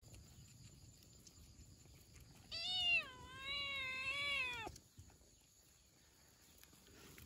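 A cat meowing once: a single long meow of about two seconds that starts high, dips and then holds level before stopping abruptly.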